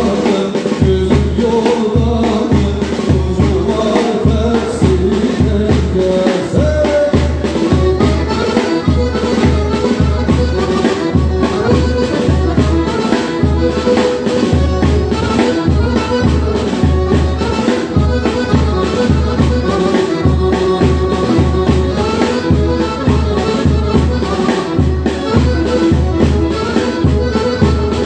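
Live wedding band playing dance music for a hand-holding line dance, with a drum kit keeping a steady, even beat under a melody line.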